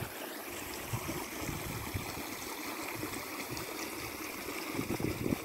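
Shallow creek water running over stones: a steady trickling hiss with no distinct events. A low rumble of wind on the microphone comes back near the end.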